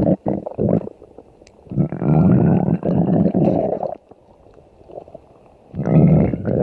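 Cartoon stomach-growl sound effect: long, loud rumbling growls. One runs about two seconds from near two seconds in, and another starts near six seconds, with short gurgles just after the start.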